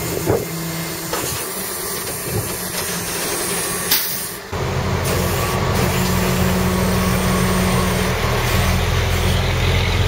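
Flatbed tow truck's engine running close by, a steady low hum. It starts as a hissy, thinner sound and jumps abruptly louder and deeper about four and a half seconds in.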